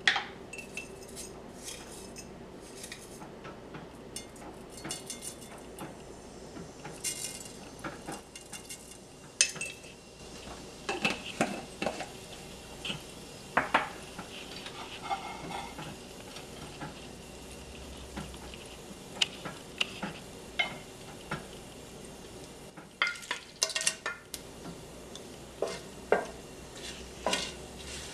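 Cumin seeds spooned from a glass jar into hot oil in a non-stick frying pan: scattered clinks and taps of a spoon against the jar and pan over a faint sizzle, then a wooden spoon stirring the seeds and dried red chillies in the pan near the end.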